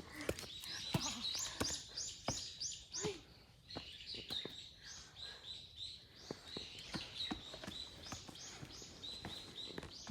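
High, repeated chirping calls, about three a second, in several runs with short pauses between, over a steady high-pitched drone. Irregular footsteps and knocks on the trail sound underneath.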